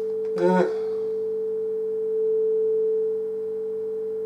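Steady sine-wave test tone from a function generator, sent through a small three-stage FM transmitter kit and heard through an FM radio's speaker: the transmitter is working. The tone gets louder for about a second near the middle.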